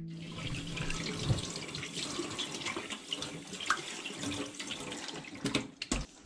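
Kitchen tap running into a stainless steel sink while hands wash something under the stream, with splashing and small clatters. A few sharp knocks come near the end.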